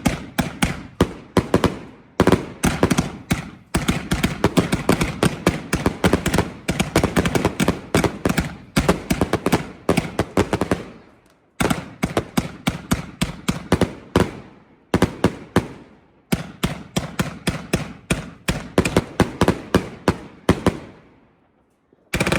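Multi-shot firework cake firing: a fast run of sharp bangs, several a second, with a couple of brief pauses, tailing off near the end.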